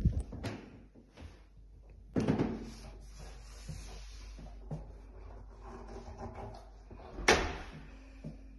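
Front door of a flat being handled: clicks and knocks from the door and its lever handle at the start, a scraping rustle about two seconds in, and a single sharp knock near the end.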